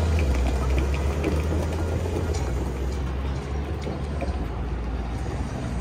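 Low rumble of a passing vehicle fading away over the first few seconds, over steady street noise.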